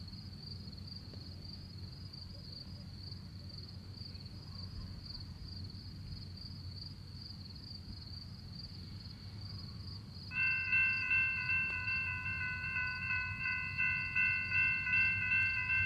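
Railroad grade-crossing warning bell starting abruptly about ten seconds in and ringing in repeated strikes, warning that a train is approaching. A steady, high insect trill runs underneath throughout.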